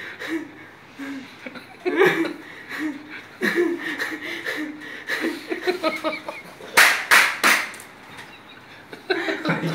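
People chuckling and laughing with a little low talk, and three quick sharp sounds close together about seven seconds in.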